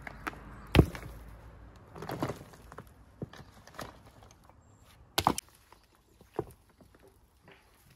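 Scattered sharp knocks and taps of stone-walling work, with a quick double knock about five seconds in and quieter gaps between the strikes.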